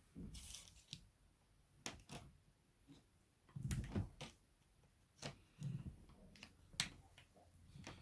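Quiet handling sounds: scattered small clicks, taps and a few soft low thumps as insulated electrical wire is fed into a drill-mounted wire stripping bit, with the drill not running.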